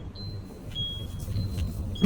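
Electronic two-tone warning beeps, a higher and a slightly lower tone taking turns about every half second, over the low hum of the idling car as it reverses into a car elevator.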